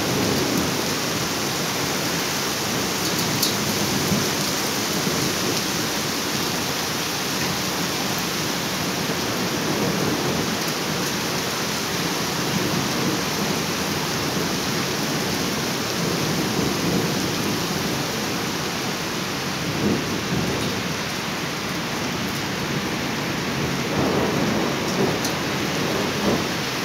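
Very heavy rain falling in a thunderstorm, a dense, steady hiss of downpour.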